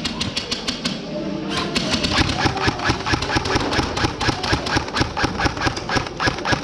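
Airsoft gun firing a long run of evenly spaced shots, about five or six a second, with a brief break about a second in.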